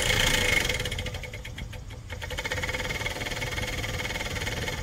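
Truck heater blower motor running out of its housing, its squirrel-cage fan wheel spinning freely: a steady whine with a fluttering hum, a little bit noisy. The level dips about a second in and picks back up about two seconds in. The old motor is noisy but still works.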